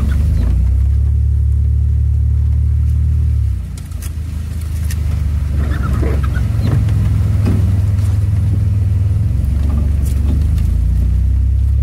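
An AWD minivan's engine and drivetrain droning low inside the cabin as it drives a rough dirt forest track, with scattered knocks and rattles from the bumps. The drone drops off just before four seconds in, then builds back up.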